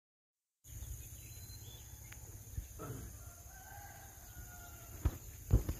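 A rooster crows once, about three seconds in, a single drawn-out call over a steady low rumble. Two heavy thumps come near the end and are louder than the crow.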